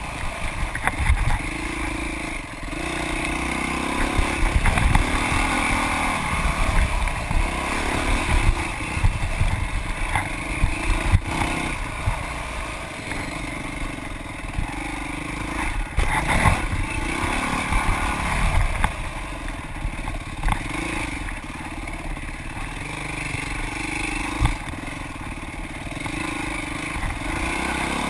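Dirt bike engine heard from the bike itself, revving up and down as the rider accelerates and backs off along a rough trail. Frequent knocks and low thumps run through it.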